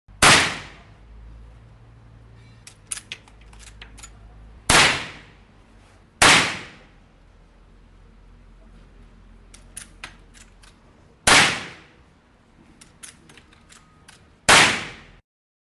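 Puma rifle firing five single shots, each a sharp crack with a short decaying tail, spaced unevenly over about fifteen seconds. Short runs of faint clicks come between several of the shots.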